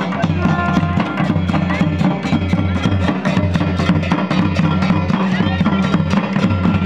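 Large barrel drums (dhol) beaten in a fast, steady rhythm, with crowd voices underneath.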